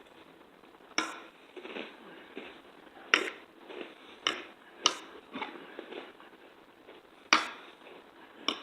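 Cutlery clicking sharply against a plate about six times, with softer eating sounds in between.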